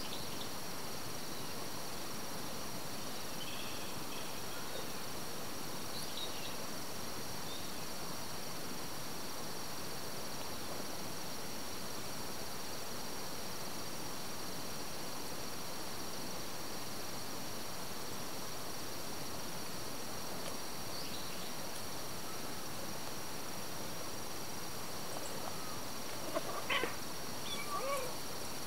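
A steady, high-pitched drone of insects in the grass. Near the end come a few short kitten mews.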